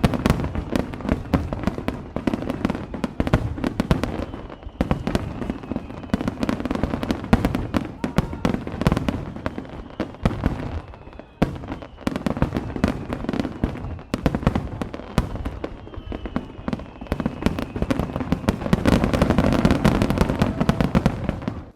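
Fireworks display: a dense, continuous run of shell bursts and crackling reports, with a few faint falling whistles, swelling into a heavier barrage near the end.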